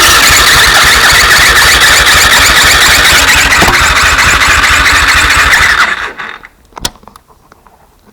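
A vehicle engine running loudly with a steady, even beat and a harsh noise that the uploader calls bad. It shuts off abruptly about six seconds in, and a single click follows a second later.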